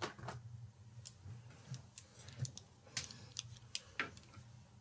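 Faint, irregular small clicks and taps from a makeup brush and a compact eyeshadow palette being handled.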